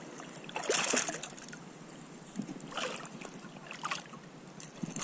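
Sea water lapping and splashing against the side of a kayak, with three short, louder splashes: about a second in, near three seconds and near four seconds.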